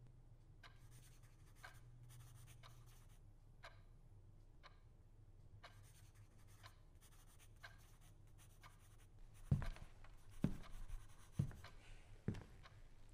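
Pen scratching on paper in short, quiet strokes over a low steady room hum. About nine seconds in, a few louder low thumps come roughly a second apart.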